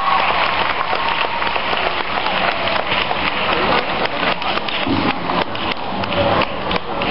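Audience applauding: dense clapping from many hands, steady throughout.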